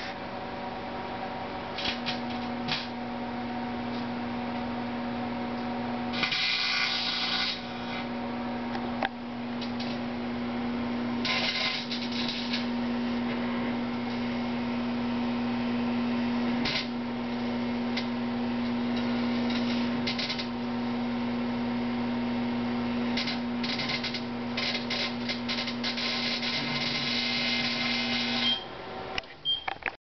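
Microwave oven running with a steady hum while a hard drive tray inside arcs in repeated bursts of crackling, the longest run near the end. The hum stops a second or so before the end, and a short beep follows.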